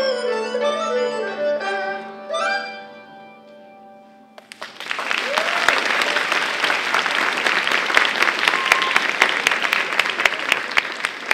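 Closing notes of a Chinese traditional piece played on yangqin hammered dulcimer with a bowed erhu, ending with a last flourish about two and a half seconds in that rings away. About four seconds in, audience applause breaks out and carries on steadily.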